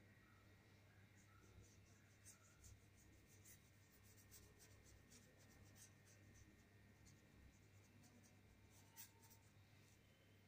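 Faint paintbrush strokes on the painting surface: a string of short, soft scratches at an irregular pace, one a little louder about nine seconds in. A low steady hum runs beneath.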